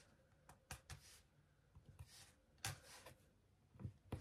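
Faint, scattered light clicks of a diamond-painting drill pen picking resin drills out of a plastic tray and tapping them onto a wooden ornament, with one sharper tap a little past halfway.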